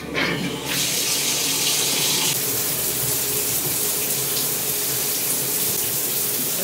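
Shower turned on, its water spraying in a steady hiss from under a second in.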